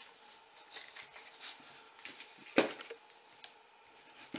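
Plastic parts of a metal detector's shaft being handled during assembly: faint rustling and light taps, with one sharp click about two and a half seconds in.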